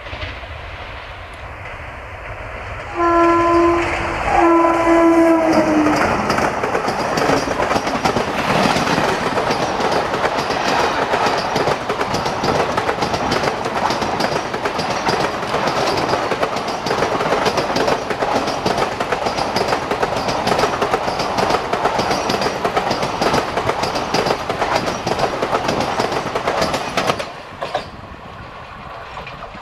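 WAM-4 electric locomotive sounding two horn blasts, the second sliding down in pitch as the engine passes, followed by a fast superfast express train rushing by with heavy rumble and rapid, rhythmic wheel clatter over the rail joints. The passing noise drops away abruptly near the end.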